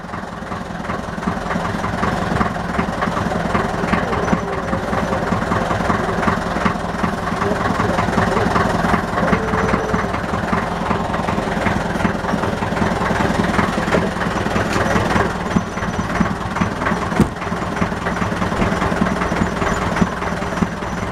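Small motorboat's engine running steadily at low revs as the boat creeps slowly in toward shore.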